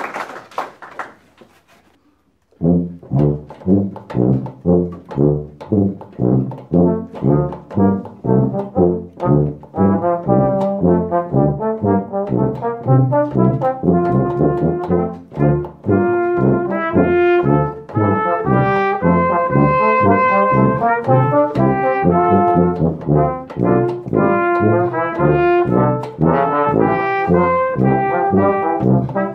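Brass ensemble playing live. Scattered applause dies away in the first second or two, then the ensemble starts a piece about two and a half seconds in, with a brisk rhythm of short, detached chords and some longer held notes later on.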